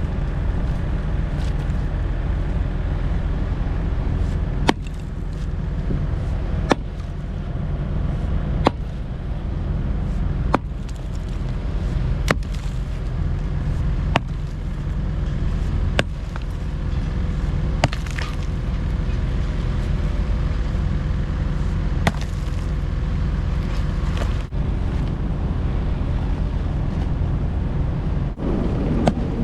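A heavy engine running steadily with a low rumble, with short sharp clicks about every two seconds.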